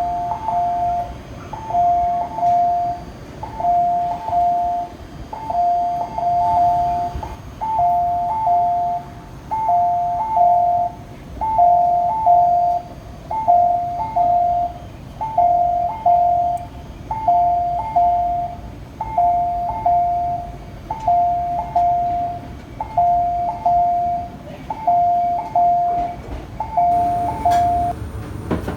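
Two-tone electronic chime repeating evenly, about once every two seconds, over a low rumble of station noise: the kind of guide chime a Japanese railway station plays for visually impaired passengers.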